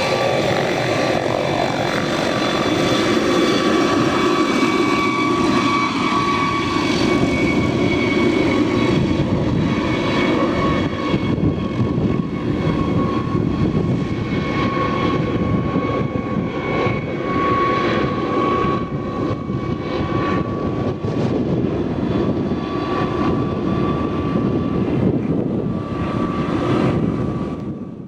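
Helicopter running steadily overhead: turbine whine over the rotor and engine noise, cutting off abruptly at the end.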